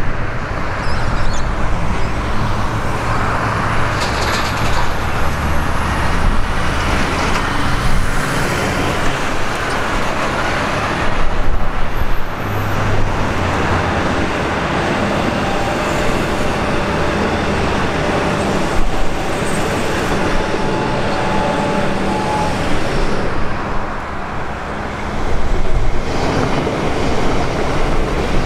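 Road traffic going by in a steady wash of vehicle noise, with louder swells about eleven seconds in and again near the end as vehicles pass close.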